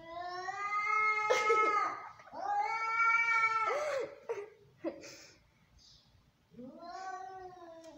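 Angry domestic cat caterwauling: three long, drawn-out yowls, each rising in pitch at its start, with a pause before the third, near the end. This is a threat yowl at an intruding cat.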